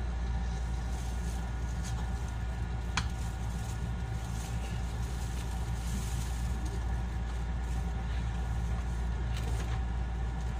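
Cabin sound inside a JR West 221 series electric train's motor car: a steady low hum with faint steady tones above it and a few isolated sharp clicks.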